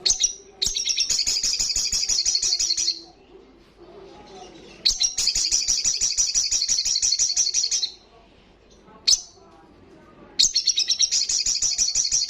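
Sogon (sogok ontong) singing: three long, high-pitched rapid trills of about three seconds each, with a short sharp chip between the second and third.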